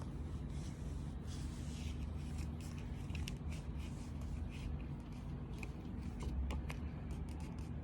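Faint, scattered small clicks and light scraping of smartphone parts and tools being handled, over a low steady hum. The clicks come thicker from about halfway through.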